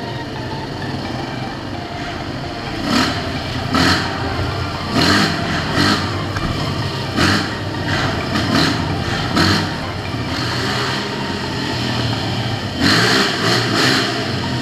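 ATV engine running inside a stone railway tunnel, with short surges of throttle about once a second from about three seconds in and a longer cluster of them near the end.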